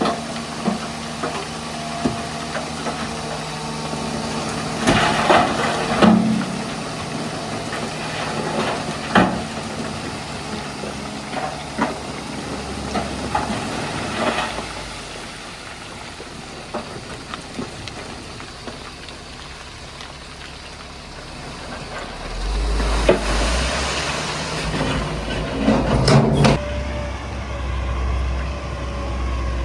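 Heavy diesel earthmoving machinery running: a steady engine hum broken by several sharp metallic knocks. About two-thirds of the way through, a deep rumbling engine comes in under short hissing bursts typical of a dump truck's air brakes.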